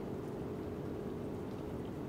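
Steady low mechanical hum of a distant engine or machinery, droning evenly without change, with a few faint ticks over it.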